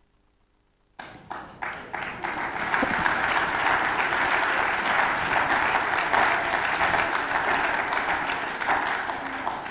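Audience applauding: after a second of near silence a few scattered claps start, quickly swelling into full applause that eases off near the end.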